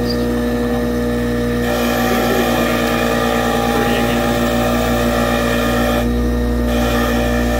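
Bench grinder running with a steady motor hum while a small metal switch part is held against its wire wheel, the wheel scratching the casting flashing off. The scratchy brushing comes in about two seconds in and stops briefly about six seconds in before resuming.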